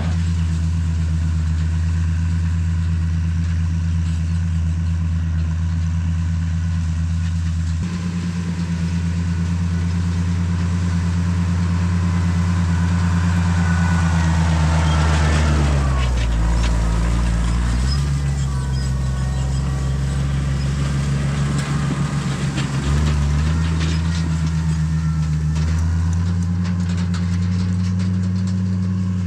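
Tractor engine running steadily while raking. Its speed sags for a couple of seconds just past halfway, then picks back up, with smaller changes in pitch later.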